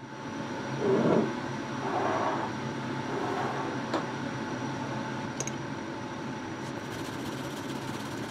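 Steady background hum with handling sounds: glass ingredient cups knocking and sliding as they are lifted off the table, a sharp click about four seconds in, and faint quick scraping near the end as a shallot is rubbed on a small flat metal grater.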